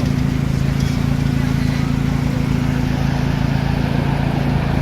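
Car engine idling steadily with a constant low hum.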